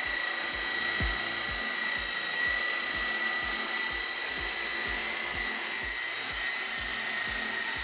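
E-Sky Hunter coaxial RC helicopter's twin 180-size electric motors and counter-rotating rotors whining steadily in flight, with regular low thumps about three times a second.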